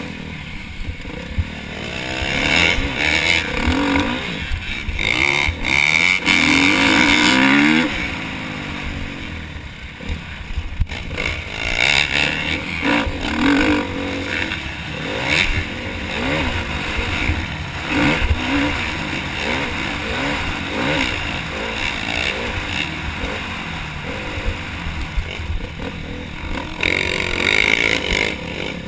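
KTM motocross bike engine revving hard and dropping off again and again as the rider throttles, shifts and rolls off through corners and jumps, heard from a camera mounted on the bike, with steady wind hiss over it.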